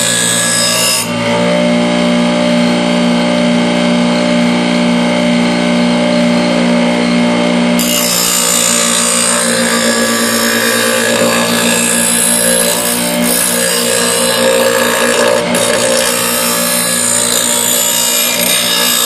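Power grinder running steadily with a grinding hiss as it works a steel lawnmower blade.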